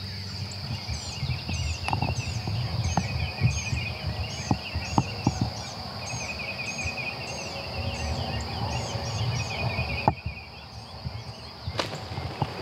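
Rio Grande wild turkey gobbler gobbling over a dawn chorus of songbirds trilling and chirping, with a few sharp clicks and knocks close by.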